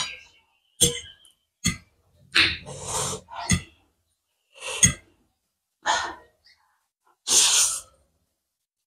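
Close-miked eating of spicy instant noodles: a few sharp clicks of a metal fork on a plate, then a run of wet slurps and mouth noises as noodles are sucked in, the longest slurp near the end.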